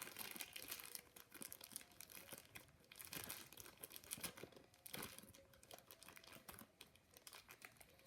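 Faint, irregular crinkling of a squishy's plastic package as it is handled and the squishy is put back inside.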